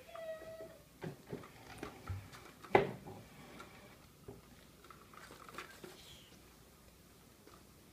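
Light taps, pats and rustles of a kitten pouncing on and pawing at the fabric cover of a cat toy, with one sharper knock about three seconds in.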